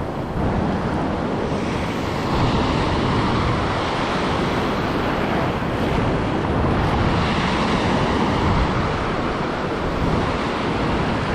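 Ocean surf washing in on a beach, a steady even rush that gets a little louder about two seconds in, with wind on the microphone.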